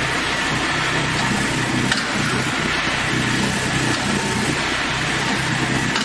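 Engine of a hydraulic portable sawmill running steadily.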